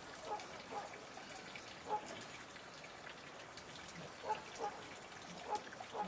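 Water dripping in small, irregular plops, about seven scattered over a few seconds against a faint background hiss.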